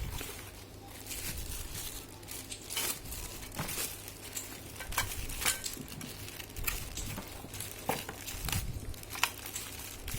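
Packaging crinkling and rustling as it is handled, with irregular sharp clicks and crackles.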